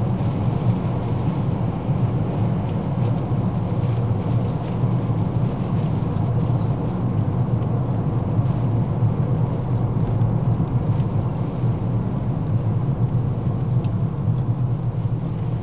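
Small hatchback car, a 12-year-old Ford Fiesta, driving along steadily, heard from inside the cabin: an even low drone of engine and road noise that does not change.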